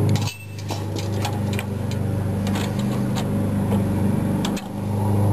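An engine running steadily in the background, with scattered light metallic clicks as the crank handle is handled and fitted onto a trailer jack.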